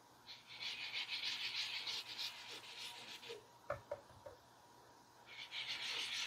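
A foam ink-blending dauber rubbed in quick strokes over paper, making a soft, scratchy swishing. About halfway through it stops for a few light taps as the dauber is reloaded on an ink pad, and the rubbing starts again near the end.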